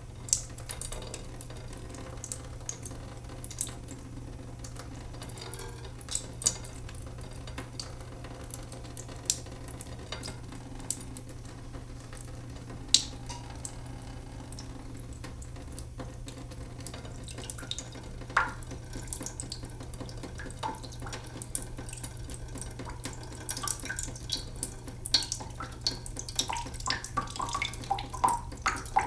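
Water leaking from a sink, falling in irregular drops and small plinks over a steady low hum. The drops come thicker and faster in the last few seconds.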